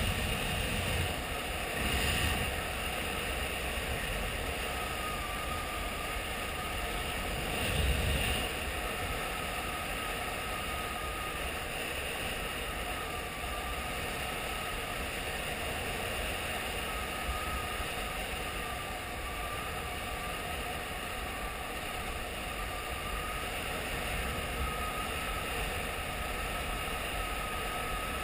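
Honda XRE 300 single-cylinder motorcycle engine running at a steady cruise, heard under a constant rush of wind on the microphone, with a few brief louder swells, the biggest about eight seconds in.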